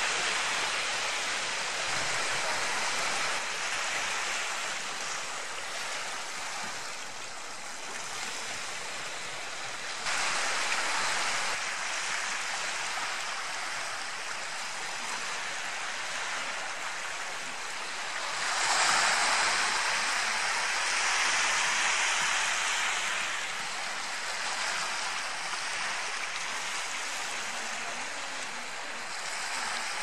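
Steady wash of surf and water on a shoreline, swelling louder a few times as waves come in.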